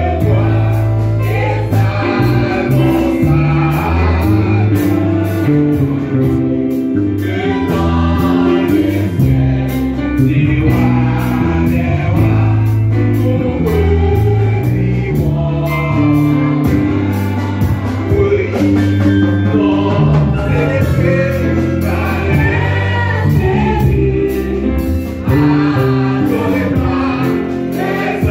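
Live gospel worship music: an electric bass guitar and a keyboard accompany voices singing, with a prominent bass line.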